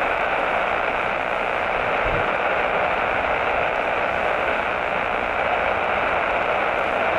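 Steady static hiss like an open radio channel, even and unbroken, with no voice on it.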